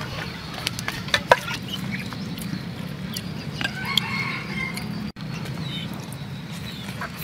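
A chicken calling, a short pitched call about four seconds in, over a steady low hum, with a few sharp clicks a little over a second in.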